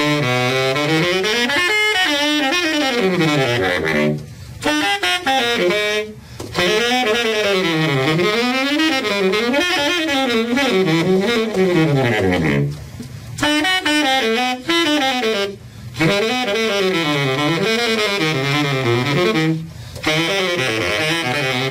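Baritone saxophone playing a solo jazz line in fast runs that sweep up and down its range. The phrases are broken by short pauses for breath.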